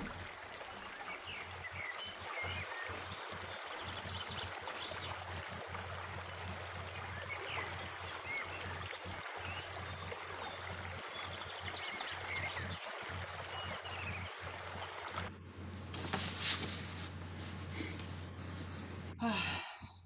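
Forest stream running steadily over rocks, with scattered short high chirps. About fifteen seconds in the water sound cuts off, and a short loud breathy sound follows.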